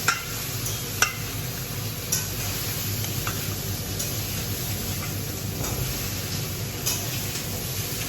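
Raw fish pieces being handled and rubbed with salt in a dish, with four short sharp clicks and taps spread through, over a steady sizzling hiss.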